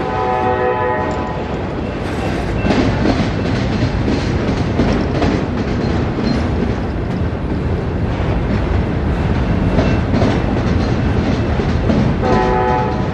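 Autorack freight cars rolling past with a steady rumble and the clickety-clack of wheels over the rail. A horn-like chord of steady tones sounds for about a second at the start and again near the end.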